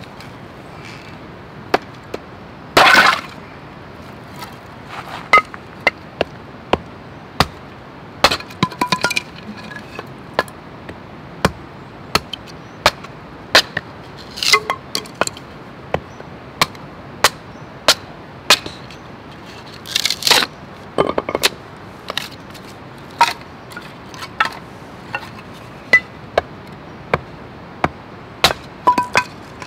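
A string of sharp knocks and clinks of hard objects, irregular and roughly one a second, with a louder clatter about three seconds in and another about twenty seconds in.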